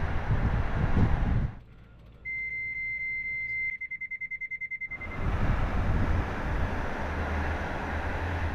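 Driving noise of a truck on the road, cut off about a second and a half in. A high warning alarm in the truck's cab then sounds a steady tone for over a second and breaks into rapid beeping, signalling a vehicle motion control system failure. The truck's driving noise returns about five seconds in.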